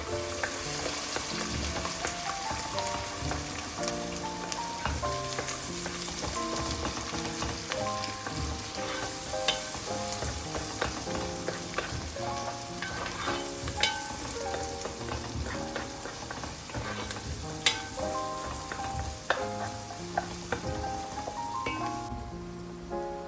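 Food sizzling as it fries in oil in a pan, stirred, with a few sharp clicks of the utensil against the pan; the sizzle cuts out about a second before the end. Background music plays over it.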